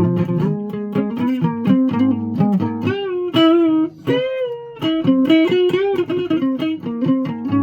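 Guitar playing a run of plucked notes, with bent, wavering notes in the middle and a brief gap just before the middle.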